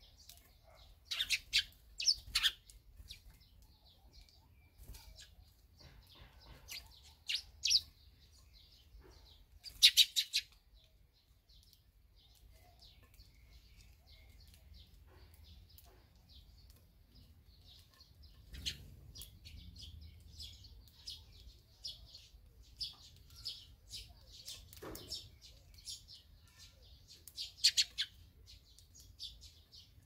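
Barn swallows chirping and twittering at their nest: clusters of short, sharp high calls, loudest about a second in, around ten seconds and near the end, with softer continuous twittering through the later part.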